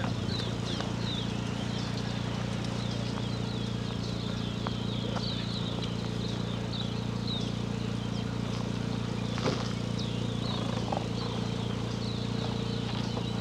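Many short, high chirping animal calls repeating over a steady low hum, with a single sharp knock about nine and a half seconds in.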